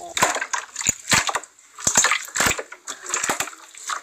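Clear slime being squeezed and worked by hand, giving an irregular run of sharp crackling pops.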